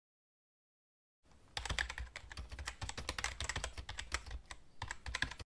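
Fast typing on a computer keyboard: a dense run of key clicks that starts about a second in and cuts off abruptly just before the end, a typing sound effect under on-screen text being typed out.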